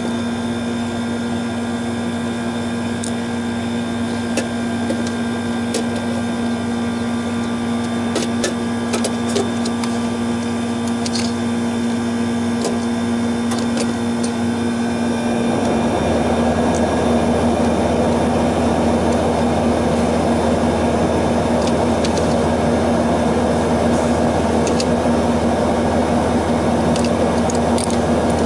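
Scattered light clicks and taps of a screwdriver and a compressor contactor being worked in an air-conditioning condenser's control box, over a steady machine hum. About halfway through, a louder steady machine rush with a low hum starts up and keeps running.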